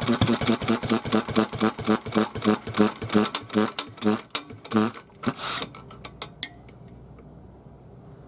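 Early Kubota AN-type single-cylinder kerosene engine running down to a stop: its quick, even beats spread further and further apart and end about five and a half seconds in, followed by a few light clicks as the flywheel comes to rest.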